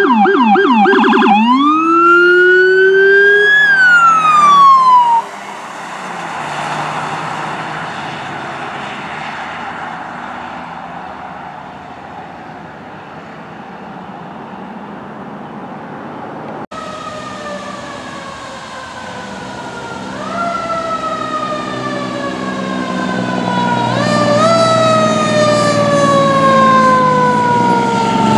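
A police SUV's siren goes from a fast yelp to a wail that rises and then falls as the vehicle passes, and cuts off about five seconds in, leaving road noise. Later a fire rescue truck's siren comes in, rising quickly and falling slowly several times, louder as the truck approaches, with its diesel engine rumbling underneath.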